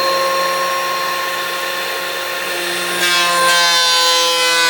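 DeWalt thickness planer running and planing an old, dry wooden stair tread. About three seconds in the sound gets louder and harsher as the cutter bites into the board.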